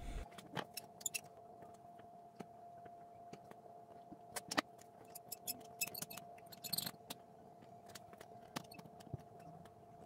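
Faint scattered clicks and taps of a small wooden block and a plastic clamp being handled and set against a wooden kettle stand, over a faint steady hum.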